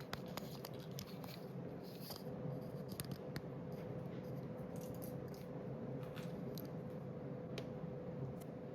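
Emerson Premium ceiling fan running steadily on high speed: an even motor hum with a few steady tones, called 'a little bit of harmonics', under a light rush of air. Scattered light clicks sound through it.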